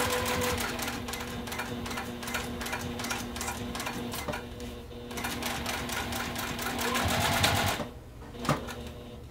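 Juki sewing machine stitching a seam at a steady pace, a rapid run of needle strokes over the motor's hum, stopping a little before eight seconds in. A single click follows.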